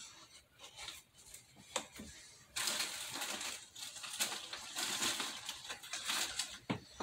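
Handling noise of someone rummaging by hand: a few scattered clicks and knocks, then from about two and a half seconds in a steady spell of rustling, crunching and small clicks.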